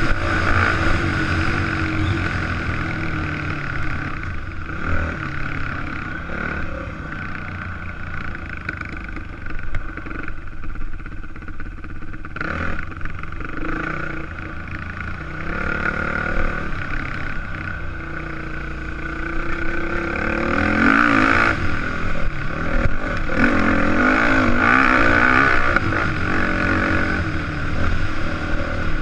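Yamaha dirt bike engine running under way, its pitch rising and falling as the throttle is opened and closed, louder and more revved in the last third. A single sharp clack about twelve seconds in.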